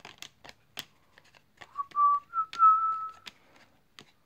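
A person whistling a few short notes over about a second and a half near the middle, the pitch stepping slightly upward. Around it, the light flicks and snaps of baseball cards being thumbed through by hand.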